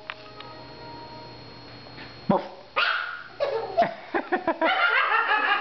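Small poodle whining and yipping in short, high cries that start a little before halfway and come thick and fast near the end.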